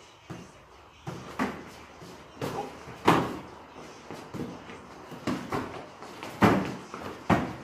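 Gloved punches and kicks landing during kickboxing sparring: irregular sharp slaps and thuds of padded gloves and shin guards against gloves and bodies, some closely paired. The hardest hits fall about three seconds in and again between six and seven and a half seconds.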